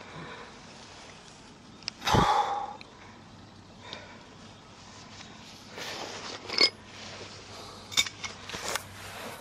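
Hand tools being handled at a helical earth anchor: a dull thump about two seconds in, then a few sharp, ringing metal clinks in the second half as the steel socket and installation tool are worked loose from the anchor head.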